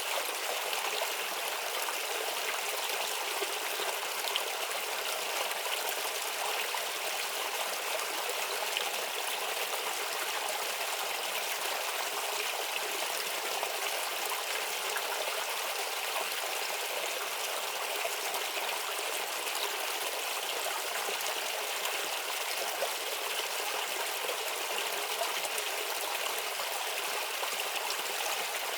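A shallow stream babbling and trickling over stones, a steady, unbroken sound.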